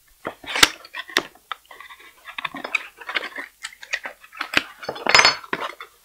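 Aluminium frame extrusions and cardboard parts boxes handled on a desk: scattered light clicks and knocks with cardboard rustling, and a denser clatter about five seconds in.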